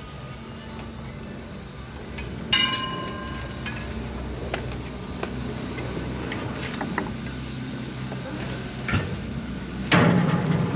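Chairlift station machinery running with a steady low hum. A ringing metallic clank about two and a half seconds in, small knocks, and a louder metal clatter near the end.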